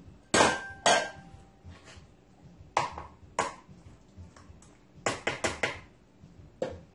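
Sharp plastic clicks and clinks of a Ninja food chopper being taken apart, its blade assembly lifted out of the plastic bowl. The clicks come singly, then in a quick cluster about five seconds in, and one near the start rings briefly.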